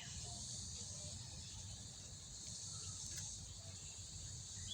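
Steady high-pitched insect chorus over a faint low background rumble.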